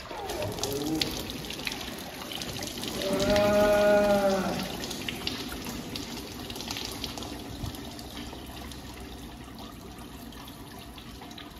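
Grade 46 hydraulic oil pouring and splashing from the opened boom hydraulic cylinder of a New Holland backhoe loader into a bucket and onto the concrete floor, a steady gushing stream. About three seconds in, a loud drawn-out pitched sound, rising then falling, lasts about a second and a half.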